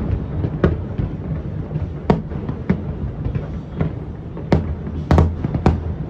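Fireworks going off across the city: irregular sharp bangs over a steady low rumble, with several bangs bunched together about five seconds in.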